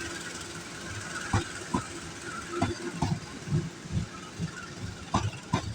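Passenger train running through a station, its wheels clacking over the rail joints in pairs of knocks about a second apart.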